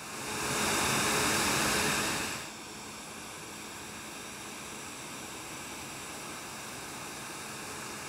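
Steady rushing machinery noise of a CLAAS Lexion 8800 combine harvester working, with a faint low hum. It is louder for the first two and a half seconds, then drops suddenly to a quieter, even level.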